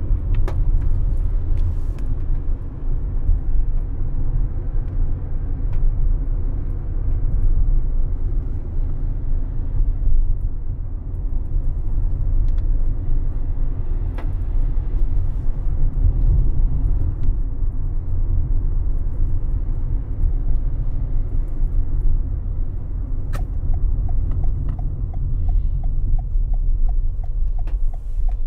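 Car driving on a wet road, heard from inside the cabin as a steady low rumble of tyres and engine. About three-quarters of the way through, a turn indicator starts ticking about twice a second as the car comes up to a junction.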